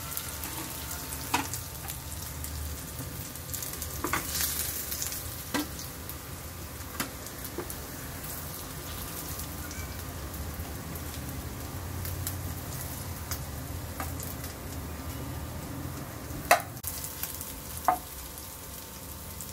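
Oil sizzling steadily as kebabs and koftas shallow-fry in a frying pan, with a few sharp clicks and knocks of spatulas against the pan; the loudest knock comes near the end.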